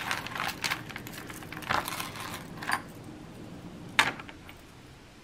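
Costume jewelry clicking and clinking as it is sorted through by hand: metal and plastic pieces knocking together in irregular small clicks, with a few louder clacks.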